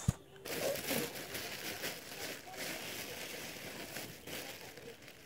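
A sharp knock, then continuous rustling and rubbing close to the microphone: the phone being handled.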